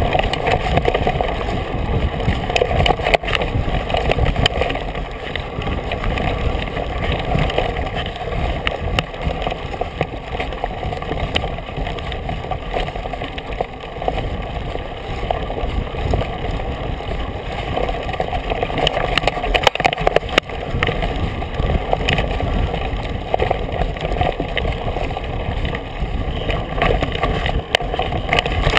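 Mountain bike riding fast over a dirt forest trail, heard through a camera mounted on the bike: a steady rumble of the tyre and air rushing past, with frequent short knocks and rattles as the bike hits bumps.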